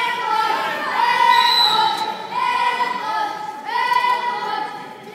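Voices singing or chanting in a large hall: a string of long, held notes repeated about every second and a half, fading near the end.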